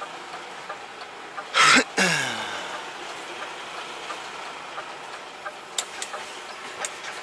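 Inside the cab of a 530 hp DAF XF 106 tractor unit, the engine idles steadily. About a second and a half in there is a short, loud burst of air hiss, followed by a pitched sound sliding downward for about half a second. A few sharp clicks come near the end.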